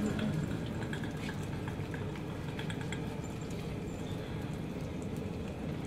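Lentil tikki patties frying in shallow oil on a large flat griddle: a steady sizzle with scattered small crackles.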